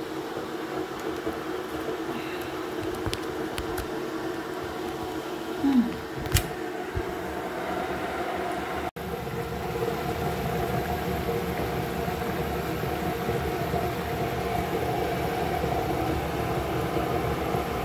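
Steady whirring drone of a kitchen cooker-hood extractor fan running over a gas hob. There is a short knock about six seconds in, and the sound cuts out for an instant about nine seconds in.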